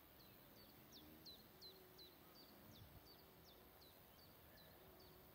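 Faint, near-silent outdoor track: a small bird repeating a short, high, downward-sweeping chirp, about three a second.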